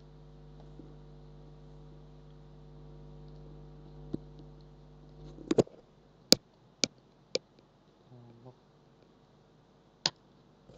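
A steady electrical hum with a buzzy edge, then about five sharp keystrokes on a computer keyboard a little past halfway, as a short word is typed, and a single mouse click near the end.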